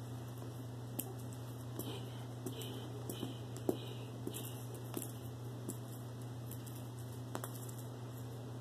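A cat playing with a toy mouse on a cord on carpet: scattered soft taps, thumps and scuffs as it rolls, grabs and kicks at the toy, over a steady low hum.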